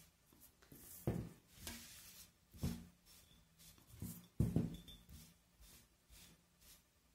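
Damp cloth rubbed up and down over a paper-covered glass jug, with several soft knocks as the jug is handled, the loudest about halfway through.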